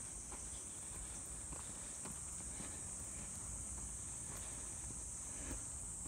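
A steady, high-pitched chorus of insects, with faint footsteps of someone walking a trail.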